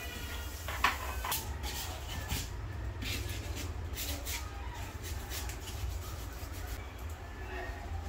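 Crumpled aluminium foil scrubbed against a metal kitchen faucet: a run of short, scratchy rubbing strokes, thickest in the first half and thinning out later.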